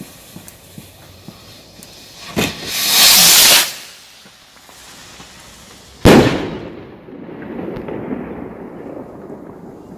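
Jorge Thunder Rocket firework: a pop about two and a half seconds in and a loud hiss for about a second as its titanium tail sprays, then a single loud salute bang about six seconds in that echoes and rolls away over the next few seconds.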